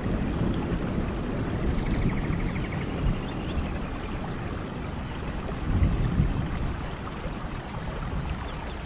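Steady rain with a low rumble and a few low thumps, and faint short high chirps of a small animal in quick groups of three or four, about four seconds in and again near the end.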